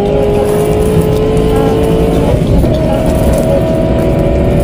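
An engine or motor running steadily, with a whine that slowly rises in pitch, then breaks about halfway through into a higher steady tone.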